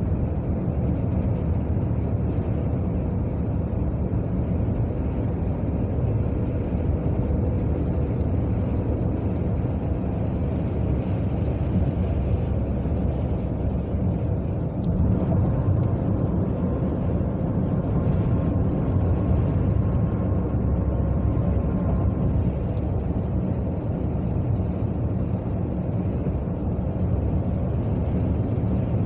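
Steady road noise of a car driving at highway speed, heard from inside the cabin: an even low rumble of tyres and engine. A faint thin whine rises above it for several seconds around the middle.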